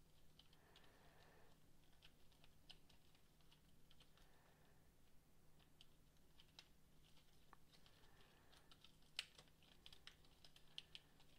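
Faint clicking and tapping of the plastic rods, connectors and balls of a Fat Brain Toys Quubi sensory toy as it is twisted and squeezed in the hands, with a few brief soft rustles and one sharper click about nine seconds in.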